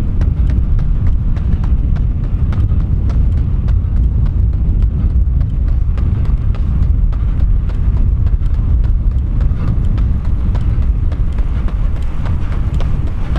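A runner's quick, even footfalls striking the track during a fast 400 m repeat, with a steady low wind rumble over the microphone.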